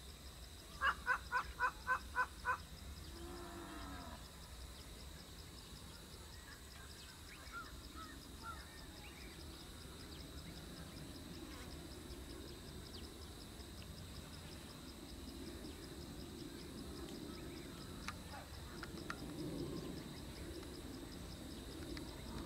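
A bird gives a quick series of about seven loud, evenly spaced notes about a second in, over a steady high whine. A low rumble from the distant approaching DEMU diesel train slowly grows under it.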